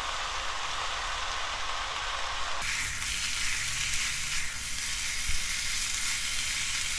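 Dried eggplant strips sizzling as they are stir-fried in an oiled frying pan with soup soy sauce. The sizzle is a steady hiss that turns abruptly brighter and higher about two and a half seconds in.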